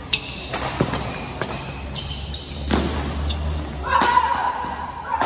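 Badminton doubles rally in a large hall: rackets smacking the shuttlecock in a quick back-and-forth, about one sharp hit every half second to second, with footfalls on the court. A held, higher-pitched sound rises about four seconds in.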